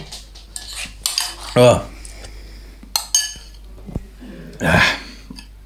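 Spoon clinking and scraping against a ceramic bowl as ice cream is eaten in a hurry: a few sharp separate clinks, with a short grunt about a second and a half in.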